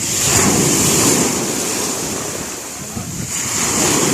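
Sea waves surging and washing in twice, with wind buffeting the microphone.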